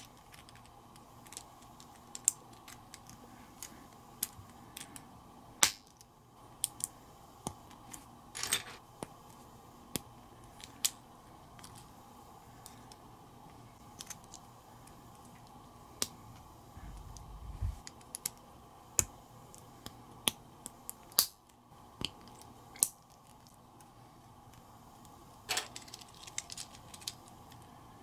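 Small plastic building bricks clicking and snapping together as they are pressed on and handled, in scattered sharp clicks with a few louder snaps. There is a short low bump about two-thirds of the way through.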